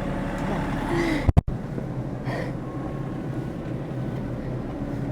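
A vehicle engine running steadily, with a sharp knock and a brief dropout about a second and a half in.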